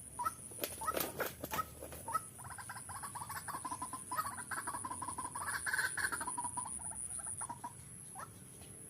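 White-breasted waterhen calling: a few short, sharp calls, then a long, fast, rattling run of pulsed calls lasting about five seconds that fades out near the end.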